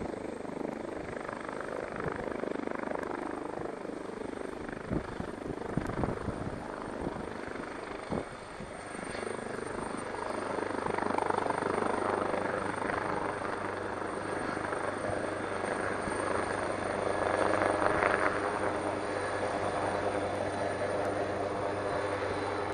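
Helicopter turbine and rotor running steadily, with a few sharp knocks in the first half. The sound grows louder about halfway through and again near the end as the helicopter takes off.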